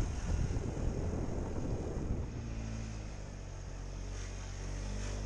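Motor scooter engine running on the move, heard from a helmet-mounted microphone. For the first two seconds wind buffets the microphone; after that the engine settles to a steady, even hum.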